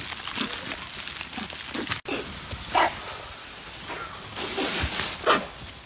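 A troop of macaques making short, sharp calls amid the scuffling of feeding, with the loudest call near the end.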